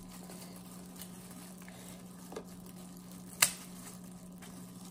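Small children's safety scissors cutting a king crab leg's shell: a couple of faint snips, then one sharp crack about three and a half seconds in, over a steady low hum.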